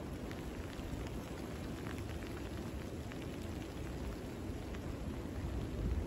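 Wind blowing through a forest of spruce and bare trees: a steady rushing with low rumbling gusts on the microphone, swelling a little near the end, and scattered faint ticks of raindrops.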